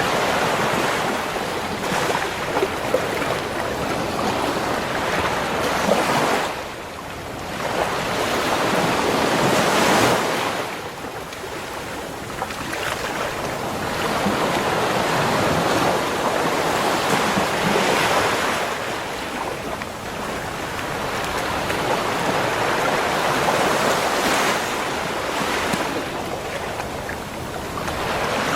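Ocean waves washing onto a beach shore, the surf swelling and ebbing every few seconds with a brief lull about a quarter of the way in.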